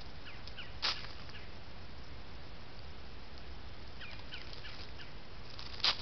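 Faint short bird chirps scattered through, with two short, harsh, noisy sounds, one about a second in and one near the end, the loudest things heard. Beneath them runs a steady low hum.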